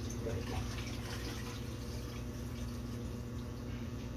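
Water running and draining into a stainless steel kitchen sink as a rinsed fish is drained in a large steel bowl, a steady trickle and splash.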